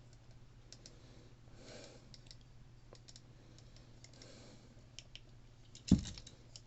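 Push-buttons on a Midland HH54VP2 weather alert radio being pressed one after another: small, quiet clicks scattered throughout, with one louder knock about six seconds in.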